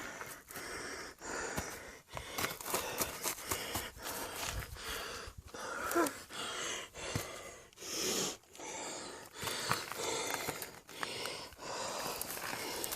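A person breathing hard and fast while climbing a steep slope, each breath in and out about once a second.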